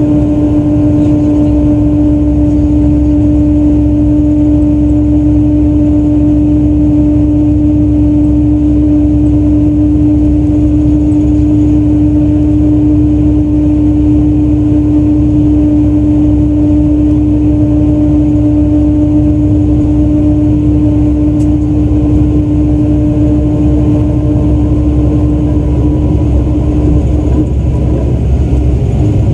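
Hino Selega coach (QRG-RU1ASCA), its straight-six diesel running at a steady, unchanging pitch: a low rumble with a strong steady hum over it.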